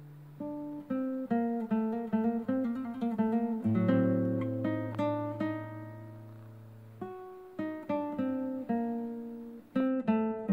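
Background music on acoustic guitar: a run of single plucked notes over a held bass note, a short lull about two-thirds of the way through, then more notes.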